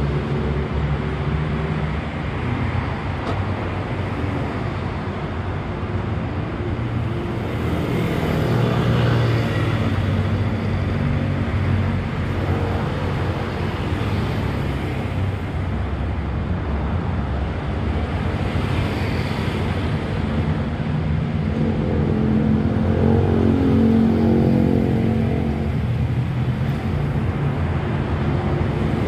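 Road traffic passing close by: a steady drone of vehicle engines and tyres, with vehicles swelling past now and then, the loudest about eight seconds in and again near twenty-three seconds.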